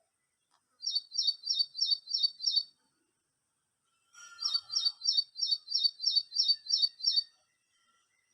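A bird chirping in repeated runs of identical high, sharp notes, about three or four a second, with a brief rough scratchy noise just before the second run.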